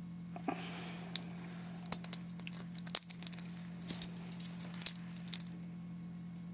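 Irregular small metallic clicks and clinks of a stainless-steel watch bracelet and clasp being handled, a dozen or so sharp ticks over a few seconds.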